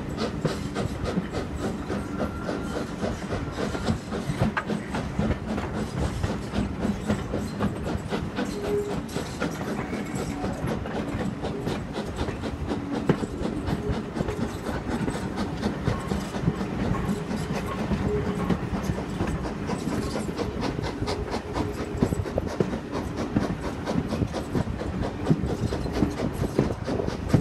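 A steam train on the move, heard from an open carriage window: a steady, rapid run of clicks and beats from the wheels on the rail joints and the exhaust of the working locomotive, a Taff Vale Railway O2 tank engine, over a low rumble.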